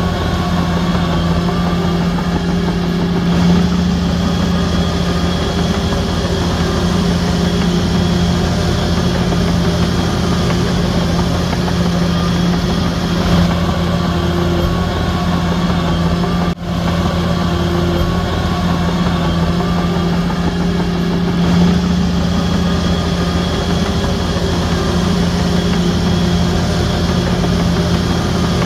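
Heavy diesel engine of a Shantui DH17C3 crawler bulldozer running steadily with a constant low hum and a faint wavering whine above it. The sound breaks off for an instant a little past halfway.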